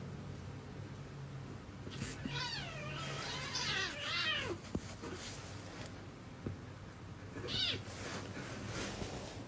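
Domestic cat meowing: one long, wavering meow that falls in pitch at the end, then a short meow a few seconds later, over a low steady hum.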